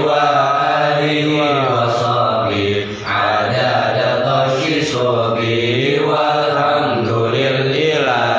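A man chanting a du'a (supplication) in long, melodic, drawn-out phrases, with a short break about three seconds in.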